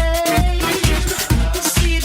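Electronic dance music with a steady four-on-the-floor kick drum, about two beats a second, and a synth melody.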